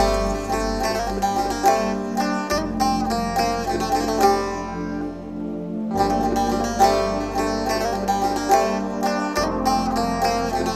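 Background music led by a quickly plucked string instrument over a held low bass note that shifts every few seconds.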